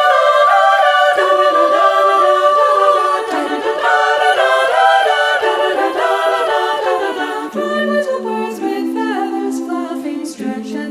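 Women's choir of sopranos and altos singing a cappella in close harmony. About three-quarters of the way in, a lower held note comes in beneath the moving upper parts.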